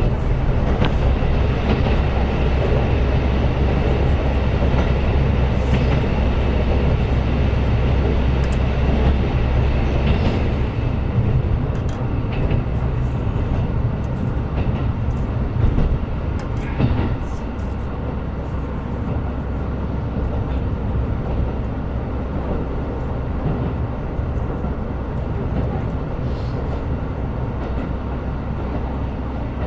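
KiHa 125 diesel railcar running, heard from the cabin: a steady low engine drone over wheel and rail noise, with scattered clicks from the track. The engine drone fades about eleven seconds in, and the sound settles a little quieter from about seventeen seconds, leaving mostly wheel and rail noise.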